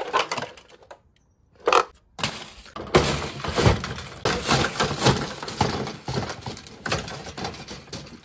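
Old, brittle plastic car dashboard cracking and crunching as it is broken up and forced into a plastic bin: a few sharp cracks in the first two seconds, then continuous crunching and scraping of plastic for the rest.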